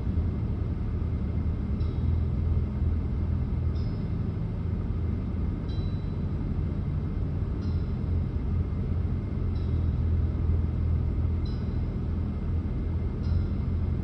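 Steady low rumble of a running vehicle, with faint short high chirps repeating about every two seconds.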